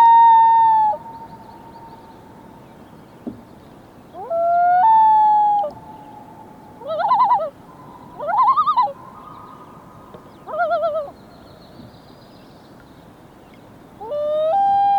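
Common loons calling over water: short rising calls that hold a steady note, leaving a faint lingering tone, and in the middle three quick quavering tremolo calls.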